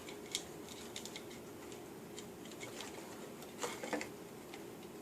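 A few light clicks and taps of small parts being handled as wires are fed through a hole in a taillight housing, over a faint steady hum. The clearest clicks come about a third of a second in and twice close together near the end.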